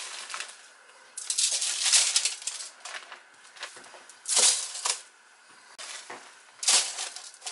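Crinkling and rustling of a plastic bag and aluminium foil in four short bursts, as crumb-coated pork chops are taken out of a gallon bag and laid on a foil-lined baking sheet.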